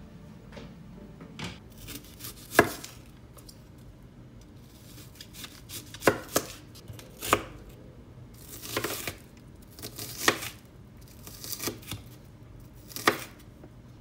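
Kitchen knife chopping a red onion on a wooden cutting board: about a dozen irregularly spaced strikes of the blade through the onion onto the board.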